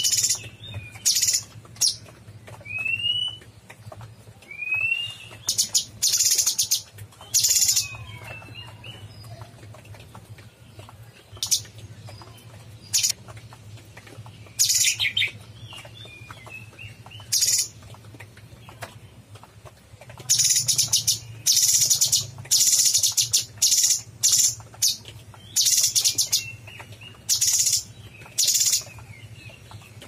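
Cucak cungkok leafbird singing: loud, scratchy bursts of song mixed with a few short, clear rising whistles, the phrases crowding into a rapid run in the last third.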